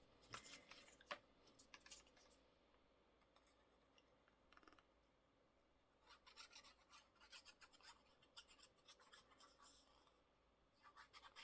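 Faint scratching and rubbing of paper being glued and pressed down by hand, in short clusters with near silence between.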